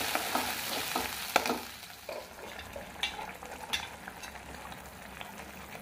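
Freshly ground masala paste sizzling in hot oil in a kadhai while a metal spatula stirs and scrapes it. The sizzle is loudest at first and dies down after about two seconds, with a few sharp clicks as the spatula strikes the pan.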